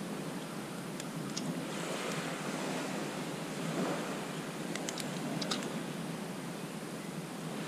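Steady hiss of small waves washing on the beach, with a few faint clicks and rustles from hands handling bait in a plastic bag.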